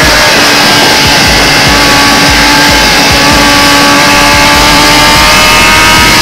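Kawasaki ZX-10R inline-four sportbike engine running hard at high revs, its pitch climbing slowly as it pulls through a gear after a brief break in the note just after the start. Loud wind rush over the onboard microphone.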